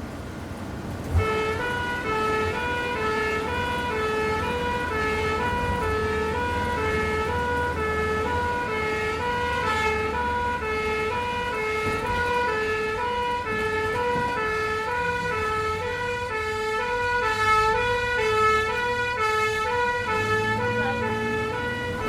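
Ambulance engine running, then about a second in a sharp click as a two-tone siren switches on. The siren steadily alternates between a high and a low note, each held about half a second.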